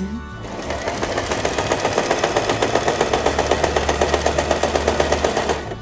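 Janome TR1018 sewing machine stitching the first side of a four-step buttonhole: the needle mechanism clatters in a fast, even rhythm over a low motor hum. It starts about half a second in, gets louder over the first second or so, and stops just before the end.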